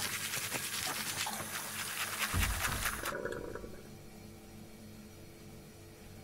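Toothbrush scrubbing teeth: a fast, scratchy brushing noise with a dull thump about two seconds in. It cuts off about three seconds in, leaving faint room tone.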